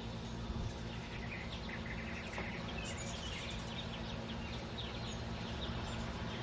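Hummingbirds chirping around nectar feeders, many short, quick high twitters throughout, over a steady low rumble.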